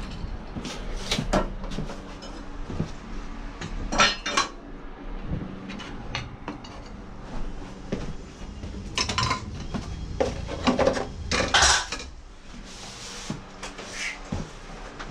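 Metal tools and parts clinking and clattering as they are handled, in irregular knocks with a few louder clanks, the loudest in the second half.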